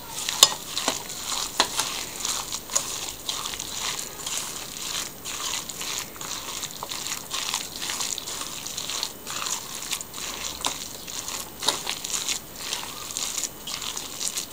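Hands kneading and squeezing a raw minced-meat mixture with egg, onion and bread crumbs in a stainless steel pot: an irregular run of small crackles and squishes, with a few sharper clicks.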